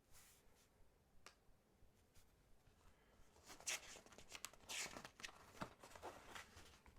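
Brass pocket pen writing on a paper notebook: faint, short scratching strokes starting about three seconds in, after a couple of light clicks.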